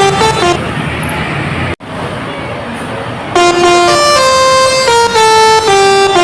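Bus 'telolet' Basuri multi-tone air horn playing a quick stepped melody, which breaks off just after the start, leaving a stretch of steady noise with a brief dropout. About three and a half seconds in, the horn starts its tune again, loud, in held and changing notes.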